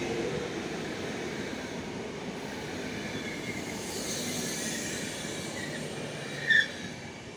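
RegioJet passenger coaches rolling past on the rails, the rumble fading as the last coach goes by. A short, high squeal about six and a half seconds in is the loudest moment.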